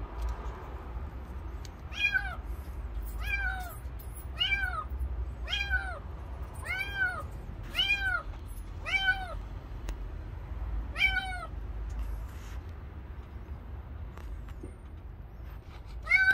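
Kitten meowing: short, high, arched cries that rise and fall, about eight in a row at roughly one a second, then a pause and one more near the end.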